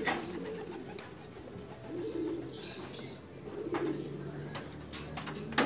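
Racing pigeons cooing, a low rolling coo every second or two, with a few faint high chirps and light clicks. A sharp knock right at the end.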